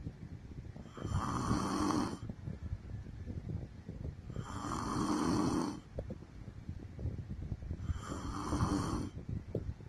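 A woman snoring in her sleep: three snores about three and a half seconds apart, each lasting a second or so.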